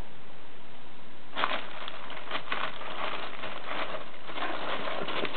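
A bag rustling and crinkling as a cat moves around in it: a quick run of short crackles that starts about a second and a half in and keeps going.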